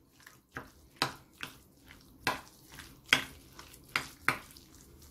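Metal spoon stirring wet chopped chicken mince in a glass bowl: soft squelching with irregular clinks and scrapes of the spoon against the glass, about two a second.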